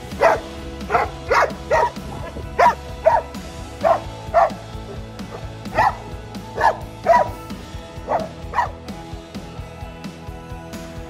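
A dog barking about a dozen times, in twos and threes, over background music; the barking stops about two seconds before the end.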